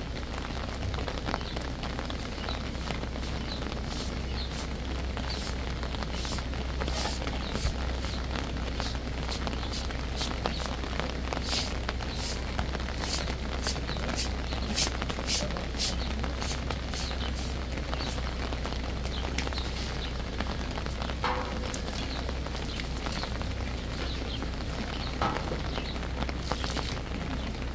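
Water splashing and dripping, with many small sharp ticks, over a steady background hiss and low rumble.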